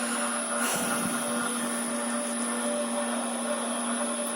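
Metalworking lathe running steadily on an inverter-driven (VFD) motor, with a steady hum and a thin high whine. The uploader puts this motor noise down to the inverter. A brief rustle comes a little under a second in.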